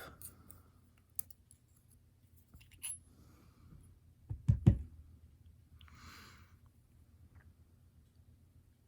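Small clicks and taps from handling the parts of a disassembled Abus euro-profile lock cylinder, with the loudest knocks in a quick cluster about four and a half seconds in and a short hiss about six seconds in.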